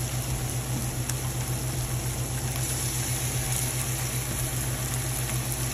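Steady low hum of a small motor running, with an even hiss of frying food over it.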